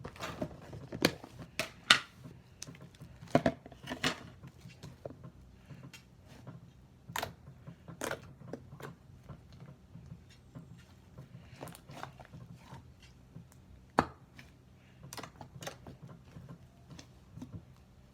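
Slime being squished and worked in the hands: irregular sticky clicks and crackles, with several louder pops in the first four seconds and one more about fourteen seconds in.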